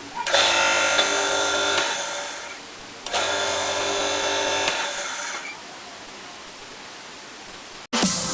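Philips blender driven by a salvaged table-saw induction motor, switched on twice in short runs of about a second and a half, each winding down after being switched off. The motor gives a steady low hum under the whirr of the blade.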